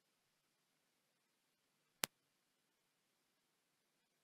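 Near silence broken by a single sharp computer mouse click about two seconds in.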